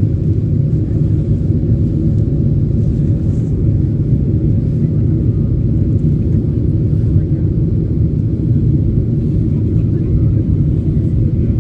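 Cabin noise of a Boeing 747-8 airliner in flight: a steady low rumble of engines and rushing air, with a faint steady hum.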